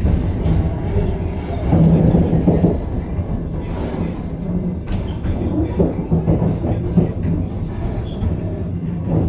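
Steady rumble of a passenger train running through a station, heard from inside the carriage, with a few short clicks.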